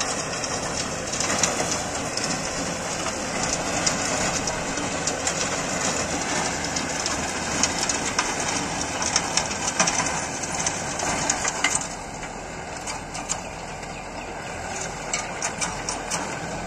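Force Sanman 6000 LS tractor with a rotavator tilling dry stubble: a steady churning noise from the tiller over the running engine, with dense crackling and snapping of dry stalks and clods. It turns quieter, with fewer cracks, about twelve seconds in.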